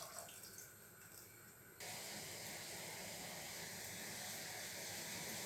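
Faint steady hiss from the stove heating a pan of ginger milk tea, starting suddenly about two seconds in.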